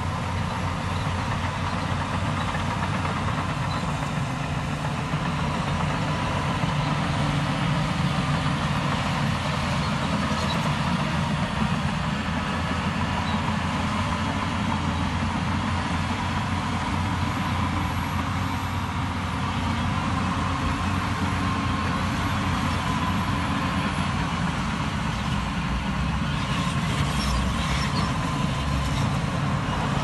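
Heavy diesel engine of a Shantui crawler bulldozer running steadily under load as it pushes dirt.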